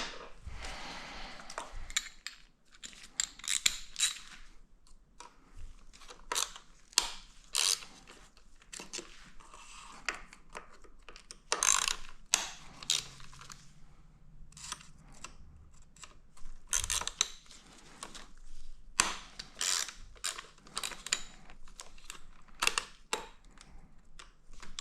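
Irregular clicks and clinks of hand tools and small metal parts being handled while working on a motorcycle engine.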